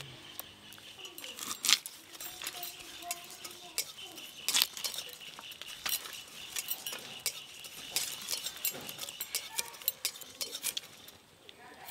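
Cauliflower florets being cut on a boti, a curved iron blade fixed upright in a wooden base: a run of sharp, irregular clicks and snaps as the stems are pressed through the blade.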